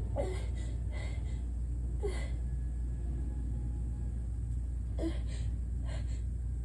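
A woman's short, sharp gasping catches of breath through the mouth, several in a row with a pause in the middle: the build-up of a sneeze she is holding back, her nose too stuffed to breathe through. A steady low hum runs underneath.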